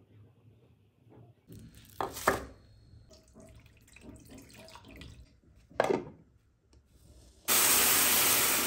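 Boiled meat and its broth poured from one pan into another pan on the stove, a steady rush of liquid for about two seconds near the end. A few sharp knocks of cookware come before it, about two seconds in and again near six seconds.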